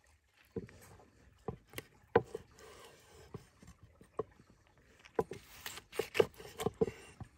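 Large cleaver chopping fried meat on a thick wooden cutting board: about ten irregular knocks of the blade striking the wood, coming closer together in the last couple of seconds.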